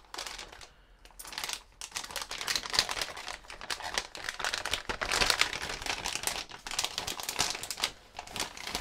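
Plastic packaging bag crinkling and rustling as it is handled. Dense fine crackles start about a second in and run on almost to the end.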